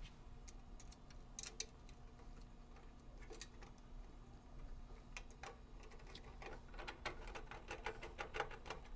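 Hand screwdriver driving screws into the front panel of an NCAT asphalt ignition furnace: faint scattered clicks and scrapes, coming more often in the second half.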